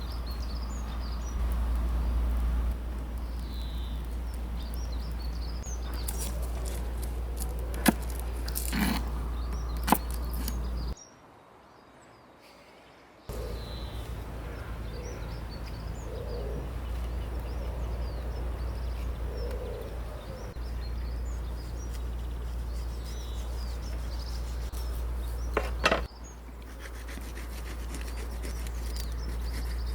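Small birds chirping over a steady low rumble, with a few sharp knocks or clicks a third of the way in and another near the end. The sound briefly cuts out to much quieter for about two seconds.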